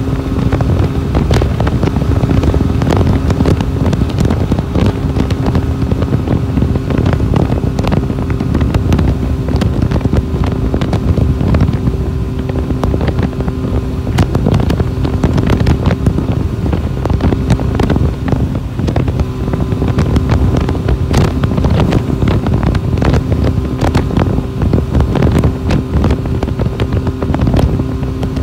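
Jonway YY350-9a motorcycle engine running steadily at freeway cruising speed, a constant drone with a steady hum. Heavy wind rushes and buffets over the microphone.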